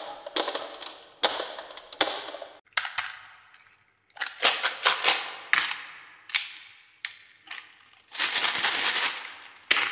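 Glass marbles and balls clacking against each other and on wood in a string of sharp clacks, each ringing off briefly. Near the end comes a longer rush of clattering as a load of balls tumbles together.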